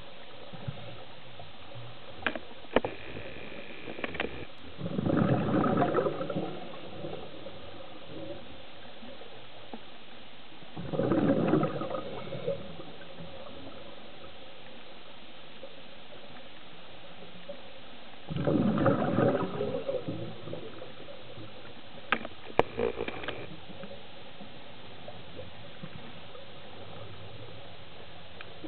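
Underwater recording of a scuba diver's exhaled bubbles leaving the regulator: three bubbly rushes several seconds apart over a steady hiss, with a few sharp clicks between.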